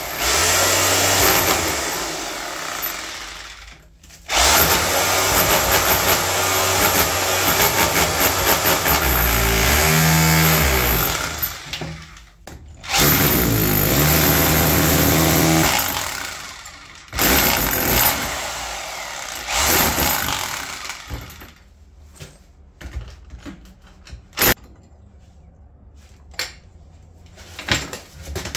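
A handheld power tool runs in several long bursts of a few seconds each, with short stops between them. In the last third it has stopped, leaving only scattered clicks and knocks.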